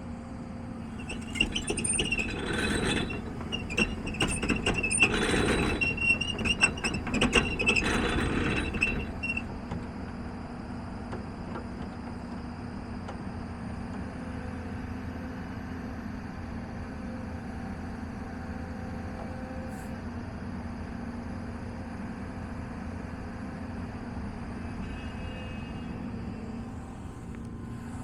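Volvo EC290LC excavator running with a steady diesel hum. For the first nine seconds or so it works noisily: loud irregular metal clanks and high squeals. After that only the even engine drone is left.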